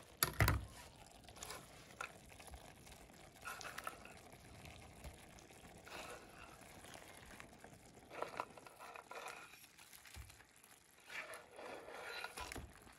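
Pieces of crayfish slid off a wooden cutting board into a pan of simmering curry sauce: soft wet plops and scattered knocks and scrapes of the board, over the faint bubbling of the sauce.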